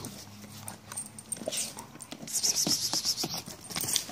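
Metal chain on a chained Belgian shepherd dog clinking and rattling as the dog moves about, with a burst of fast jingling about two seconds in that lasts around a second, among scattered light clicks.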